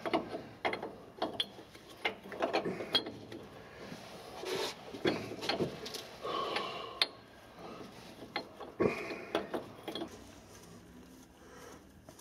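Irregular metallic clicks and knocks of hands working on parts inside the crankcase of a Sentinel steam wagon engine, with a sharper knock about seven seconds in and another near nine.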